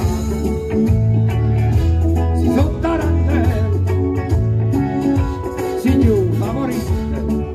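Live band music on stage: keyboard and a strong bass line, with a male voice singing over it at moments.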